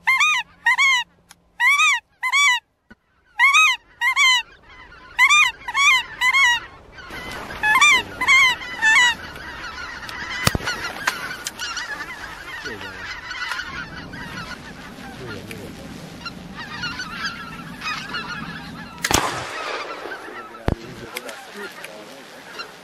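A goose call blown in quick pairs of loud honks for the first several seconds. After that, a flock of wild geese honks and gabbles overhead, with a few sharp clicks.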